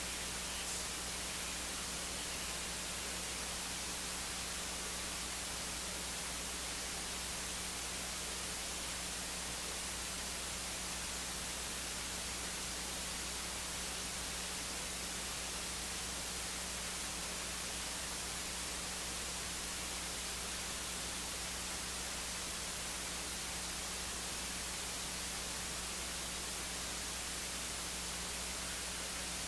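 Steady hiss with a low hum underneath, and no other sound.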